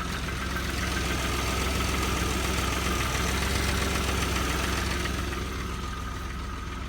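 Audi 2.8-litre AAH V6 engine idling shortly after a cold start, heard from underneath the car. It runs steadily, with a faint steady whine above the engine note, and grows a little louder in the middle.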